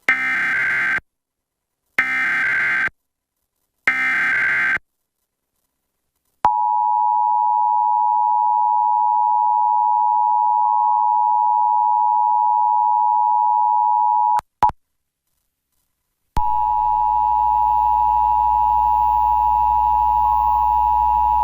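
Emergency Alert System test signal: three one-second bursts of SAME digital header data, then the two-tone attention signal (853 and 960 Hz) held steadily for about eight seconds. It breaks off with a short blip and about two seconds of silence, and the two-tone signal starts again over a low hum and hiss.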